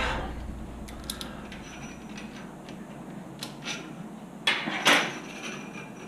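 Metal clinks from handling the parts of a DR-Z400 motorcycle front fork (spring, fork tube and damper rod): a few faint ticks, then two louder clinks close together near the end.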